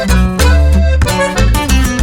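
Background music: a lively tune with plucked strings and a strong bass beat.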